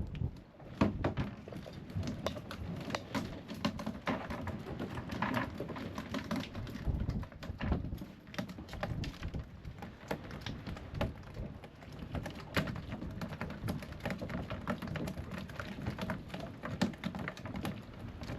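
Freshly caught mackerel flapping against the boat, an irregular quick tapping and pattering that goes on throughout.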